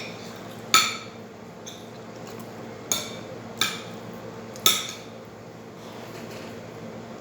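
Cutlery clinking against a plate while eating: four sharp clinks at uneven gaps of about a second, each with a short ring, over a steady low hum.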